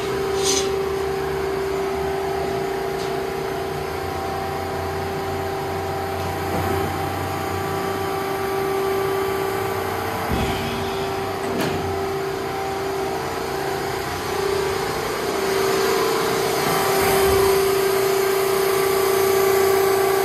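Hydraulic shear's electric motor and gear pump running with a steady hum, with a few brief knocks.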